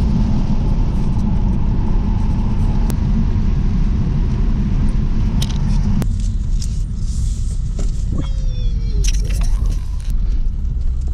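In-cabin engine and tyre noise of a BMW 3 Series (E46) driving along a country road, a steady low rumble. About six seconds in it slows onto a dirt track and the road hiss drops away. A few light clicks and a brief squeak follow as it rolls slowly over the track.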